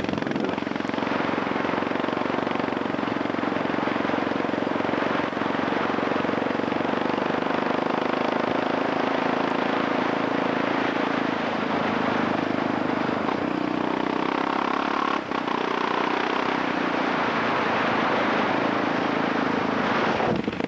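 Motorcycle engine running at a steady speed while riding along a dirt road, over a steady rush of noise, with a brief dip about fifteen seconds in.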